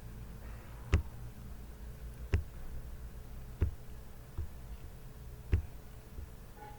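Computer mouse clicking: five sharp single clicks at irregular gaps of about one to one and a half seconds, over a faint steady hum.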